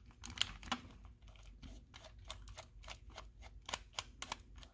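Precision screwdriver backing tiny screws out of a plastic Tomy toy steam locomotive chassis: a run of faint, quick clicks, a few a second.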